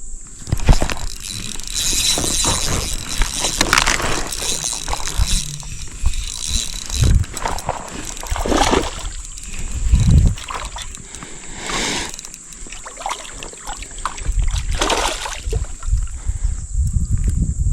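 Water splashing and sloshing in irregular bursts, with low rumbling near the end.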